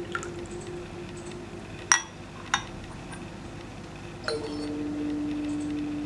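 Teaware being set down: two sharp clinks about two seconds in, the second fainter, as the clay lid goes onto a small Yixing clay teapot and the glass pitcher is placed on the stone table, after the last of the water is poured in. A sustained background music drone runs underneath and steps lower about four seconds in.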